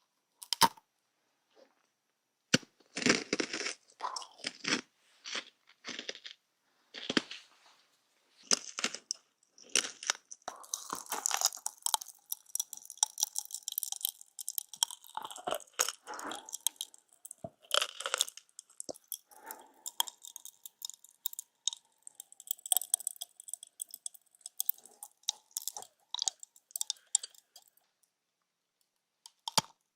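Close ASMR crunching and crackling in irregular bursts, sparse at first and then dense and continuous through the middle, stopping shortly before the end.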